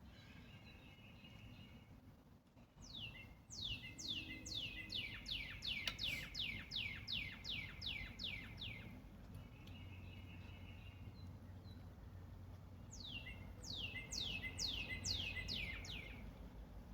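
A songbird singing faintly: two long runs of quick whistled notes, each note falling steeply in pitch, about three a second. Softer buzzy trills come between the runs.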